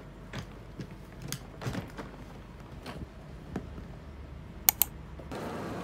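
Scattered knocks and light clicks of a hard-shell suitcase being handled, with two sharp clicks in quick succession a little under five seconds in. Near the end the sound changes to a steady background hum.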